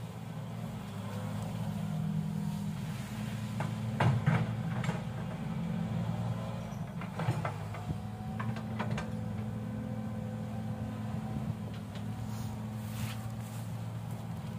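Excavator diesel engine running steadily, with a few sharp metallic knocks about four seconds in and again around seven and nine seconds in.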